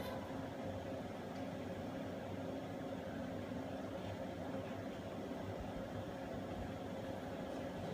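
Steady machine hum with an even hiss underneath, unchanging throughout.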